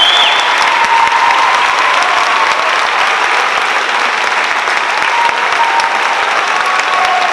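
Audience applauding, dense and steady, easing off slightly toward the end.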